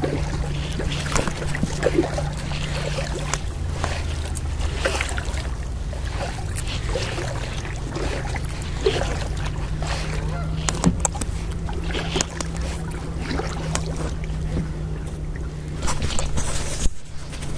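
Kayak paddle strokes: the blade dipping and splashing, with water dripping and lapping in many short, irregular splashes. Geese honk now and then in the background.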